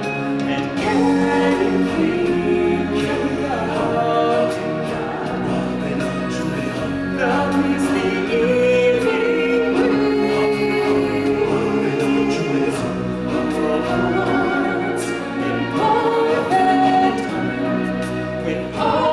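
A group of voices singing a song in choir style over a full musical backing track.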